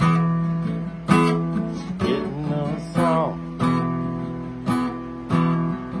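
Steel-string acoustic guitar strummed in chords, with a sharp strum about once a second and the chord ringing on between strums.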